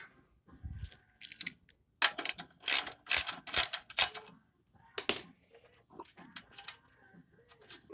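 Sharp metallic clicks and clinks of hand tools working a ground screw loose on a car's radiator support. A dense run of clicks comes about two seconds in and lasts about three seconds, followed by a few fainter ticks.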